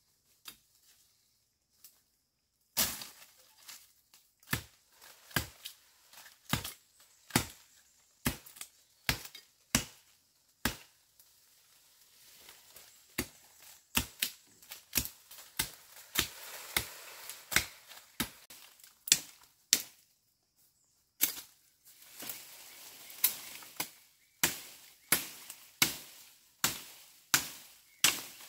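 Repeated chopping strokes of a blade into wood or bamboo stalks, a little faster than one a second. They start about three seconds in and pause briefly twice.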